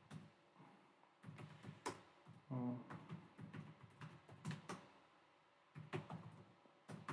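Laptop keyboard keys clicking softly in irregular runs of typing, with a short hum from a man's voice about two and a half seconds in.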